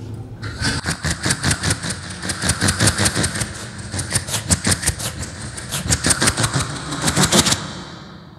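Vocal mimicry of a diesel train pulling away from a platform: a quick, rhythmic chugging of mouth clicks and breathy puffs that stops about a second before the end.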